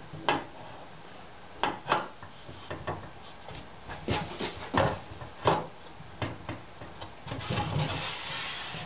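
Sub-bed plate being set onto the 3D printer's y-axis carriage and turned about to find its right orientation: a string of short clicks and knocks, then a longer rubbing scrape near the end.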